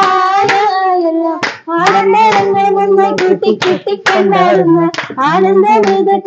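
Women singing a song together, clapping their hands to keep time. A short break comes about a second and a half in, after which a second, lower voice sings along with them.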